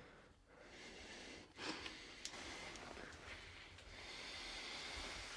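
Soft, close breathing of two people face to face, with a quick breath in about a second and a half in, going into a kiss in the second half.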